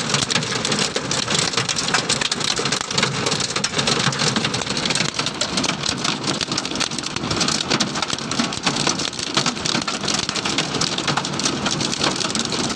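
Heavy rain mixed with hail drumming steadily on a car, a dense, unbroken patter of countless small hits.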